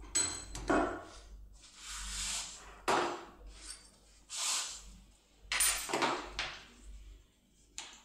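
Metal clinks and knocks, with a longer scrape about two seconds in, as a euro-profile lock cylinder and hand tools are handled and taken out of a steel bench vise.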